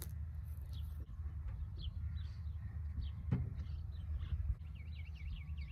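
Wind rumbling on the microphone, with scattered bird chirps and a single knock about three seconds in. Near the end a bird starts a quick, evenly repeated chirping, several notes a second.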